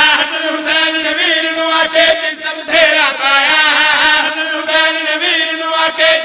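A man's voice chanting a drawn-out melodic line through a PA system, with held notes that waver and bend without breaking into speech.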